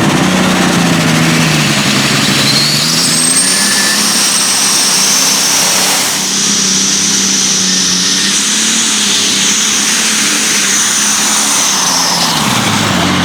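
Competition pulling vehicle's engine running hard through a pull. A high whine climbs about two to three seconds in, holds steady, and drops away near the end.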